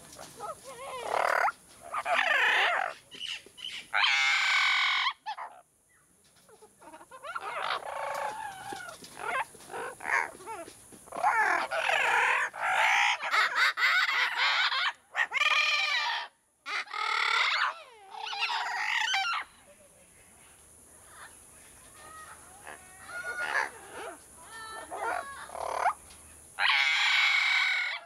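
Amazon parrots calling: loud, harsh squawks of about half a second to a second each, coming in bursts with short pauses between them.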